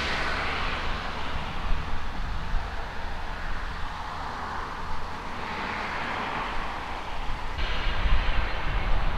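Wind blowing on the microphone outdoors: an uneven low rumble of buffeting under a rushing noise that swells and fades. The buffeting grows louder near the end.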